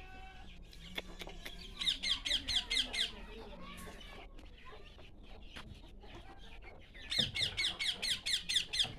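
A bird giving two runs of rapid, repeated high calls, each a second or two long and about five seconds apart.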